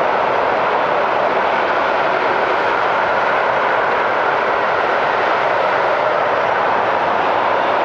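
Inland motor cargo ship's 1320 hp diesel engine running steadily under way, a constant drone that does not change.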